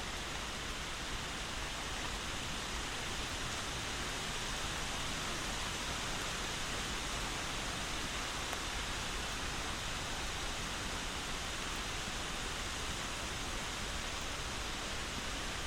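Steady rain: an even, unbroken hiss with no single drops or thunder standing out.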